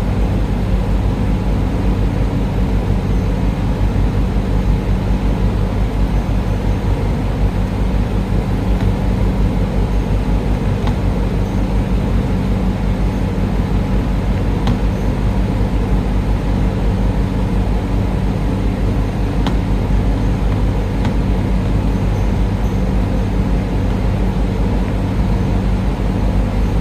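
Air conditioner running with a steady, loud low mechanical hum and hiss, with a few faint ticks.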